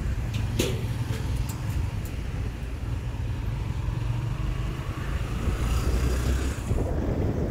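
Road noise on a motorbike ride through traffic: a steady low engine and traffic rumble with wind on the microphone. A sharp click comes a little over half a second in, and the noise swells briefly about three-quarters of the way through.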